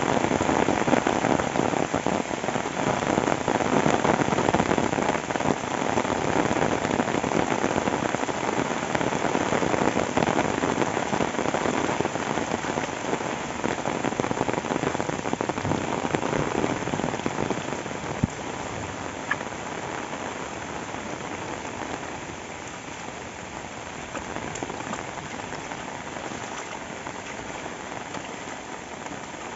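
Rain falling steadily, a dense even hiss that grows somewhat quieter over the second half, with one sharp tap about eighteen seconds in.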